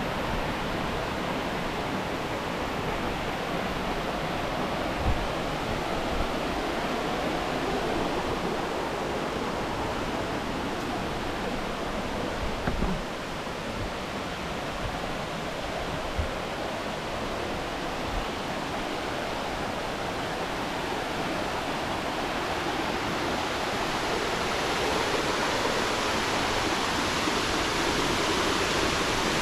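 Steady rushing of a jungle waterfall and its stream, a little louder near the end, with a few brief dull bumps.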